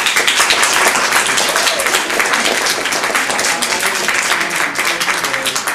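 Audience applauding, many hands clapping at once. It starts abruptly and thins out near the end.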